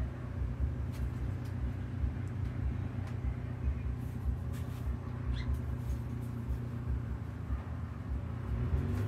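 Steady low hum of a running motor over a low rumble, with a few faint clicks and one brief high chirp about five seconds in.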